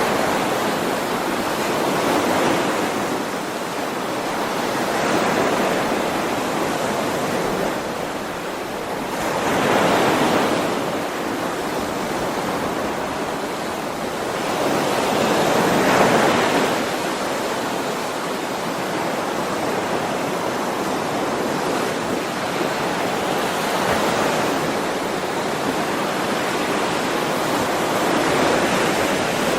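Ocean waves washing onto a shore, a continuous surf that swells and falls back every few seconds, with the biggest surges about a third and halfway in.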